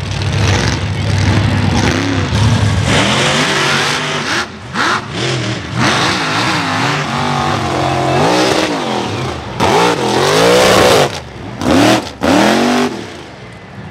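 Mega truck engine revving hard, its pitch rising and falling again and again as the throttle is worked, with a few brief sudden drops when the driver lets off.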